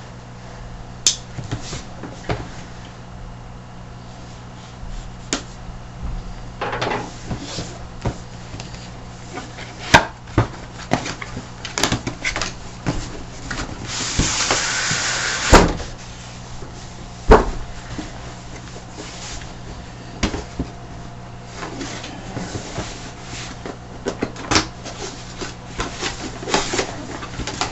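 A cardboard product box being opened and its contents handled: scattered knocks and clicks, with a longer scraping noise lasting about a second and a half around the middle, over a steady low hum.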